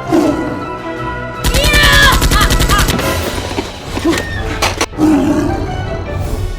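Background music with a burst of rapid automatic gunfire sound effects, about a dozen shots a second, starting about a second and a half in and lasting about a second and a half. A couple of single sharp cracks follow near five seconds.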